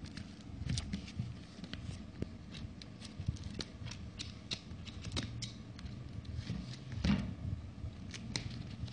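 Shipping packaging being handled and unwrapped by hand: irregular small clicks, scratching and rustling of plastic and cardboard.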